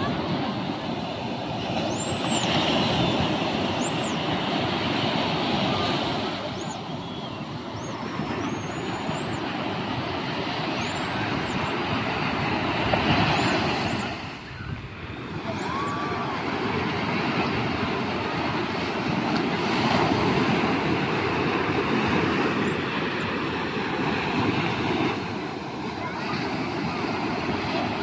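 Small surf breaking and washing up a sand beach: a continuous rushing that swells and eases with each wave and dips briefly about halfway through. Faint short high chirps come through it several times.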